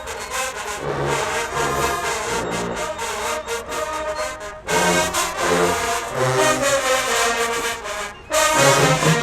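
Marching band playing, led by brass over low bass notes pulsing in a steady beat. The music breaks off briefly twice, a little before halfway and near the end, and comes back louder each time.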